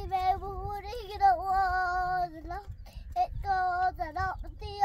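A young child singing, holding long wavering notes with short breaks between phrases.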